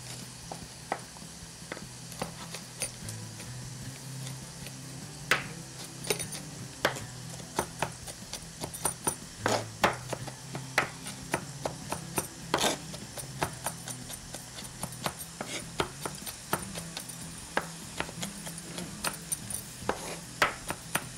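Kitchen knife chopping ginger and garlic on a wooden cutting board: irregular sharp knocks of the blade on the wood.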